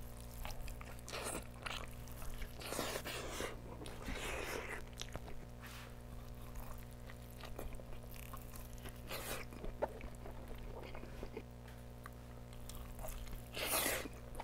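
A person biting and chewing a burger: soft, irregular mouth and crunch sounds at low level, over a steady low electrical hum.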